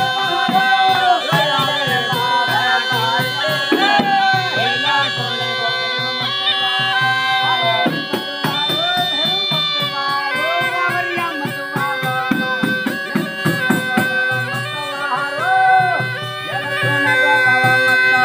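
Traditional Indian folk music: a wavering melody over a steady held drone, with a rhythmic percussion beat.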